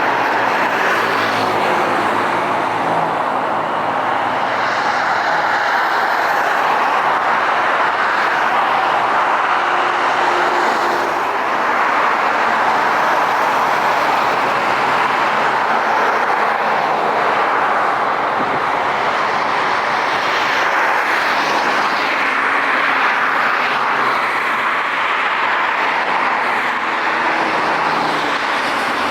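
Jet airliner engines running with a steady, even noise that neither rises nor fades.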